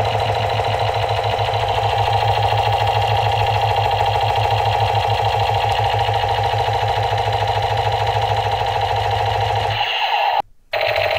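Battery-operated toy machine gun firing its sound effect while the trigger is held: a fast, steady rat-a-tat. It breaks off for a moment about ten seconds in as the trigger is let go, then starts again.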